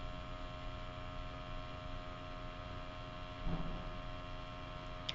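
Steady low electrical hum with several faint steady tones: room tone. A faint, brief soft sound about three and a half seconds in.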